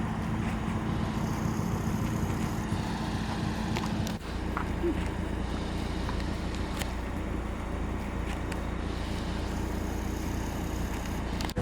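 A steady car engine and road noise, with an abrupt short drop about four seconds in before the same steady noise resumes.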